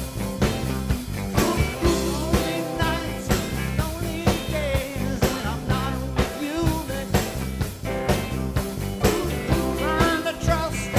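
Background music with a steady beat of about two drum hits a second under a bending melodic line, sung or played on guitar.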